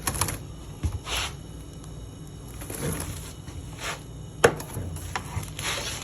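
Scattered knocks and short scrapes from prodding under a refrigerator to dislodge a snake, with one sharp knock about four and a half seconds in.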